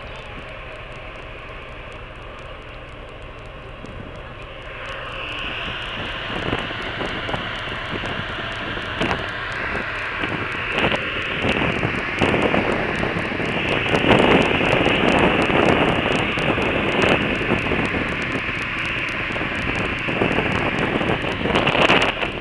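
Wind rushing and buffeting on the microphone on the open deck of the ferry Ulysses, over the steady rushing noise of the ship's funnel and machinery. It grows louder about five seconds in and stays loud, with gusty bumps throughout.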